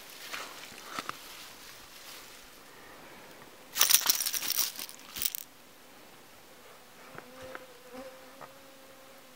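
Rustling and clattering in wet grass as a spinning rod and reel are laid down beside a caught perch and the fish is moved, loudest for about a second and a half around the middle. A faint steady buzz near the end.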